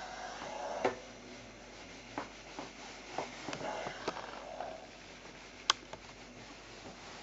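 Cotton quilt block rustling as it is lifted and turned, with light knocks of a steam iron handled on a pressing board and one sharp click a little past halfway.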